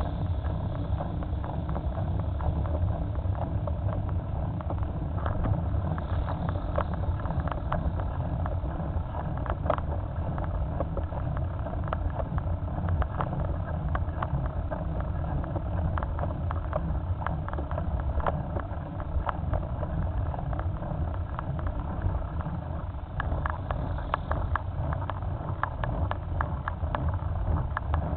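Onboard sound of a motorcycle riding along a road, picked up by a camera mounted on the bike: a steady low rumble of engine and wind on the microphone, with frequent small crackles.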